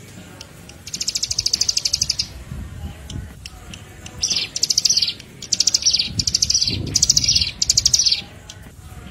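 Small songbird giving fast, high trills made of rapid evenly spaced ticks, each trill about half a second to a second long: one about a second in, then five in quick succession from about four seconds in.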